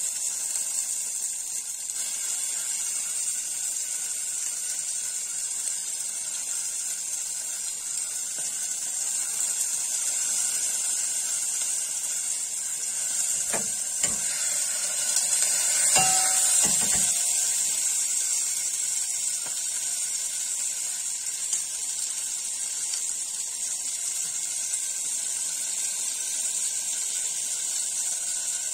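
Steady hiss from the gas hob, where a pan of cherry tomatoes is cooking, swelling a little midway. A few short knocks and clinks of utensils about halfway through.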